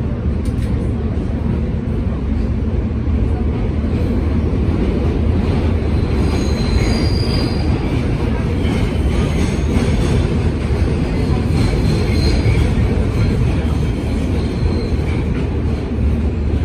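New York City R subway train running underground, heard from inside the car: a steady, loud rumble of wheels and running gear. Faint high-pitched wheel squeals come in about six seconds in and again later.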